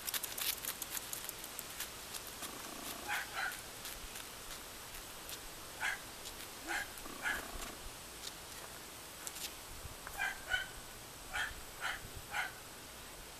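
Dog giving short, high whimpers, about ten of them singly and in pairs. A run of light clicks comes in the first second or two.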